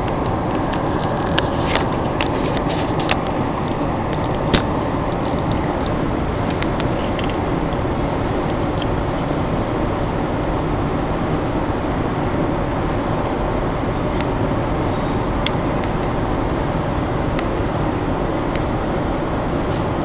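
Steady rumble of a commuter train, heard from inside a train car, with a few sharp clicks in the first five seconds and one more near the middle.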